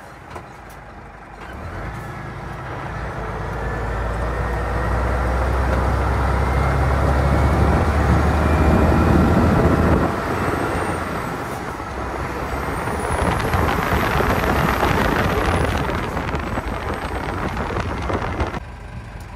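Heavy truck's diesel engine running, growing louder over several seconds and dropping off about ten seconds in, followed by a few seconds of broad hissing rush before it eases.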